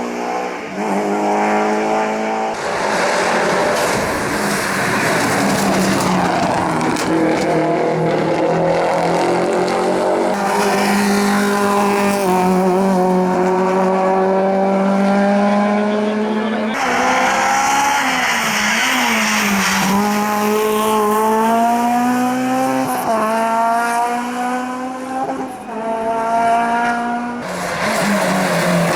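Hillclimb race car engines revving hard, the pitch climbing and dropping repeatedly as the cars accelerate and shift, in several short shots cut together.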